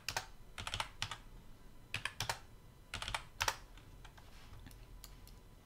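Computer keyboard keys tapped in short, scattered clusters of a few keystrokes at a time, as a dimension value is typed in.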